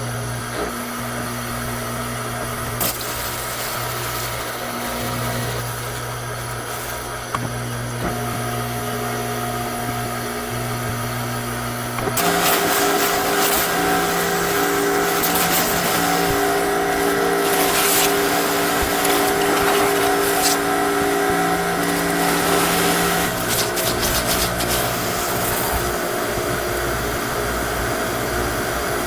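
Pressure washer running with a steady hum and spray hiss. About twelve seconds in it gets louder and its hum steps up in pitch.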